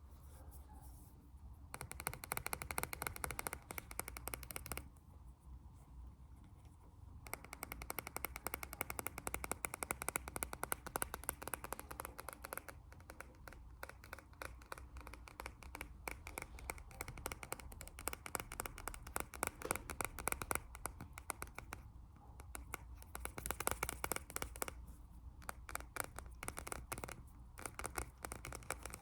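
Fast ASMR tapping: a dense run of rapid taps, many a second, in long runs broken by short quieter pauses near the start and about five seconds in.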